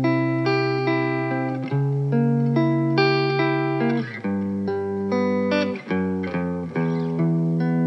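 Clean electric guitar played through a Fender amplifier: a slow intro of sustained, ringing chords and single notes, changing every second or two.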